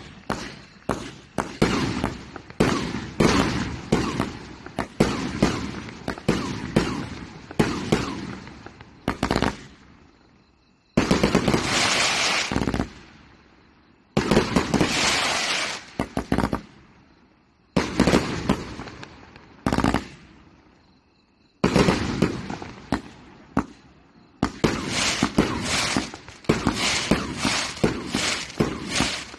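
92-shot firework cake firing: a long run of sharp launch reports and aerial bursts, about two a second. Two longer stretches of dense crackle come in the middle, and a quicker volley follows near the end.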